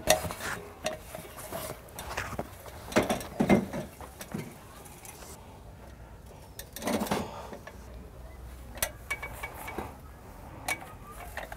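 Aluminium ladder clanking and knocking as it is handled, stood on its feet and leaned against a wall: a string of irregular metallic knocks and clinks, loudest about three seconds in and again about seven seconds in.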